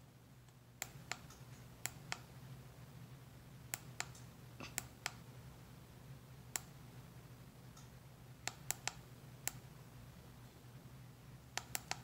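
Plastic buttons on a handheld ceiling-fan remote clicking about sixteen times, irregularly and often in quick pairs or clusters. Under the clicks is the faint, steady low hum of the Harbor Breeze Wakefield ceiling fan's motor running.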